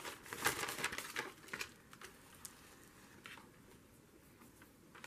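Paper rustling and crinkling as sheets are handled by hand, a run of crinkles in the first two seconds and a couple of short ones after.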